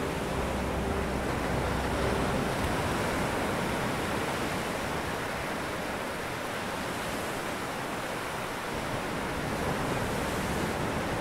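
Steady wash of ocean surf on a beach, with a low hum fading out over the first couple of seconds.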